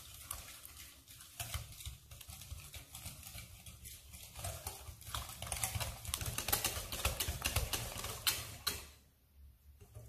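Wire balloon whisk beating eggs and sugar in a glass bowl: rapid clicking of the metal wires against the glass with a wet swish. It grows louder in the second half and stops about a second before the end.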